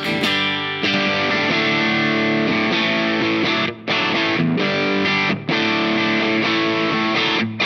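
Electric guitar played through the Zendrive-style overdrive side of a Caline Key West pedal: held, overdriven chords, with brief breaks between them about four, four and a half, and five and a half seconds in, and near the end.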